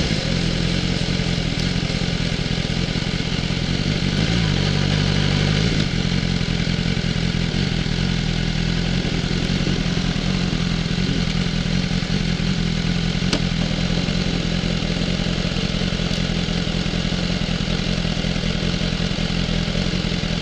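Petrol-station fuel dispenser running steadily, its pump humming as petrol flows through the hand-held nozzle into a motorcycle's tank during refuelling.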